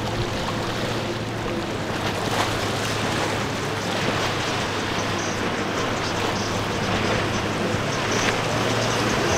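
Boat engines running with a steady low hum over a wash of churning water and waves, with wind on the microphone.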